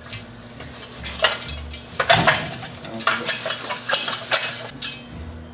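Repeated clattering and clinking of hard objects being handled, in quick clusters of rattles with short gaps between them.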